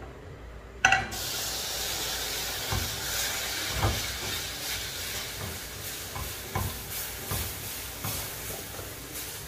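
Milk poured into a hot flour-and-oil roux in an aluminium saucepan, sizzling with a steady hiss while a spoon stirs and knocks against the pan. A sharp knock comes about a second in, just as the hissing starts.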